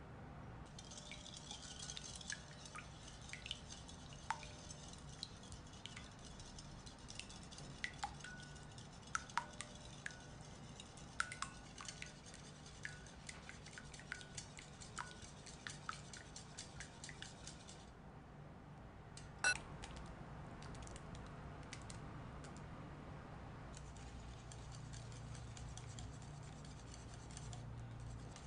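Wire balloon whisk beating eggs into a sugar-and-oil batter in a glass bowl, its wires making quick, irregular clicks and scrapes against the glass. One sharper clink comes about two-thirds of the way in, and after it the mixing turns to a softer, steady stirring.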